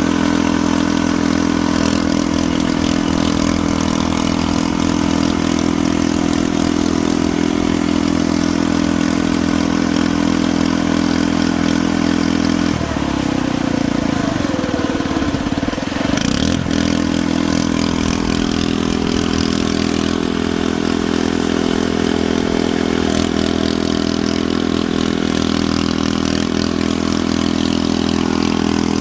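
A steady, engine-like mechanical running sound, with a lower, wavering stretch from about 13 to 16 seconds in.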